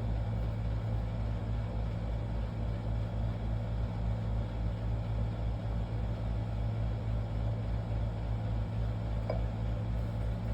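Steady low mechanical hum with a throbbing undertone, unchanging throughout; a faint click about nine seconds in.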